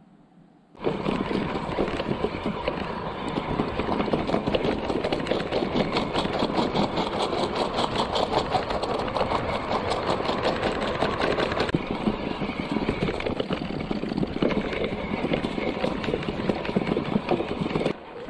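Electric mountain bike ridden along an old railway track over wooden sleepers and gravel ballast: a loud, steady rattle and rumble from the tyres and frame, packed with rapid knocks as the wheels cross the sleepers. It starts suddenly about a second in and drops off near the end.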